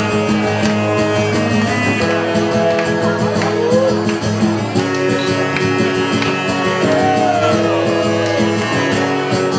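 Live band playing an upbeat dance tune: strummed acoustic guitar over a steady drum beat, with a held melody line whose notes bend in pitch.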